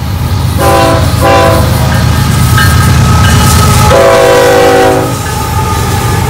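Diesel freight locomotive's air horn sounding in several blasts, two short ones about a second in and a longer one ending about five seconds in, over the low rumble of the engines and wheels as the locomotives pass.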